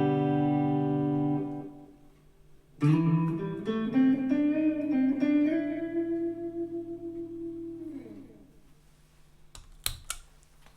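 Electric guitar with P90 pickups (an Epiphone SG Special) strumming clean chords. One chord fades out in the first two seconds, and a new strum about three seconds in rings on until about eight seconds. Two sharp clicks come near the end.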